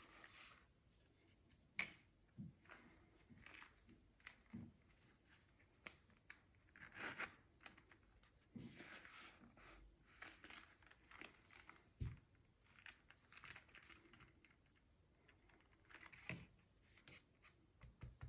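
Faint rustling and crinkling of paper packaging handled by hand, with a few light taps and knocks in between.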